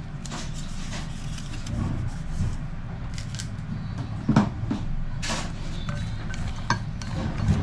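Kitchen handling sounds: scattered clicks and knocks of containers and utensils over a steady low hum, with a sharp knock about four seconds in. Near the end come a few clicks as cooking chopsticks mix diced vegetables in a glass bowl.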